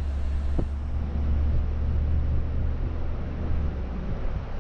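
Steady low rumble of road and engine noise from a car driving along, with a brief tick about half a second in.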